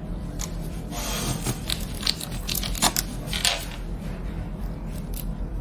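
Scattered light clicks and a brief rustle from handling the laser's optical fiber and its connector as it is fitted into the port, over a steady low hum.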